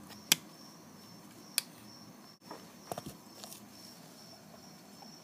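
Handling noise as a plastic toy doll bed and doll are moved by hand: two sharp clicks, one just after the start and one about a second and a half in, then a few softer taps about three seconds in, over a faint steady high-pitched tone.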